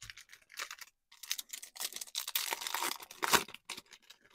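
Foil wrapper of a Topps Chrome baseball card pack crinkling and being torn open, a run of crackling with one sharp loud tear about three seconds in.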